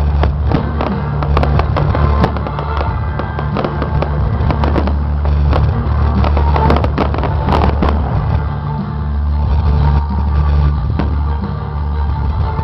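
Fireworks going off in rapid bangs and crackles, densest through the first two-thirds and thinning out near the end, over loud music with a heavy bass.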